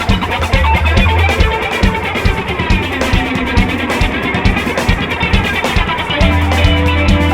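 Background music: an instrumental passage with guitar over a steady drum beat.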